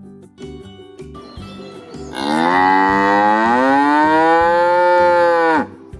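A cow mooing: one long moo of about three and a half seconds that starts about two seconds in, rising in pitch at its start and falling away as it ends, over soft background music.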